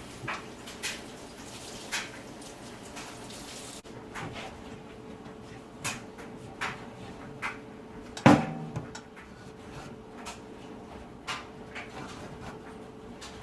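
Toaster oven being handled and wiped down: scattered light knocks and clicks, a short rubbing sound about two seconds in, and one loud clunk with a brief metallic ring about eight seconds in. A faint steady hum sits underneath.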